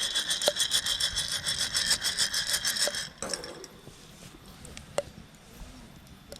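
Coffee beans rattling as they are shaken in a porcelain hand roaster over a campfire: a fast, even rattle that stops about three seconds in. A few single sharp pops follow, the beans starting to crack as the roast gets going.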